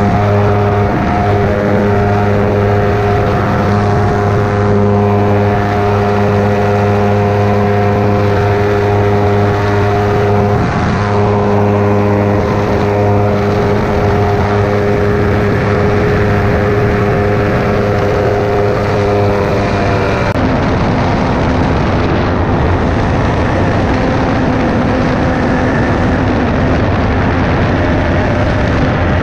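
Ultralight trike's engine and pusher propeller running steadily at climb power just after takeoff. About twenty seconds in, the even engine tone turns rougher and noisier.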